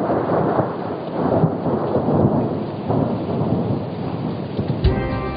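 Rain falling steadily with rumbling thunder. Music comes in just before the end, with plucked strings.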